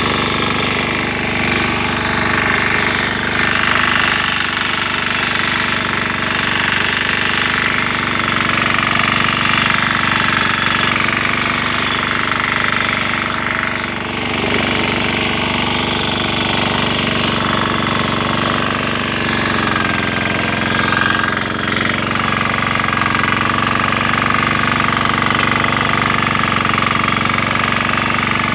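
Engine of a grass-cutting machine running steadily.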